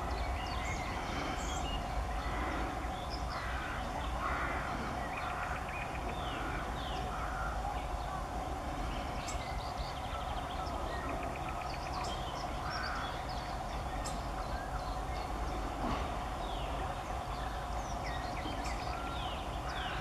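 Wild birds calling throughout: repeated harsh calls mixed with high chirps, short downward-sweeping notes and brief trills, over a steady low hum.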